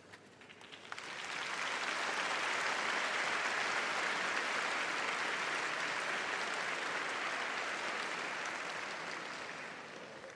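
Large audience applauding: a few scattered claps at first, swelling within about a second into steady, dense applause that dies away near the end.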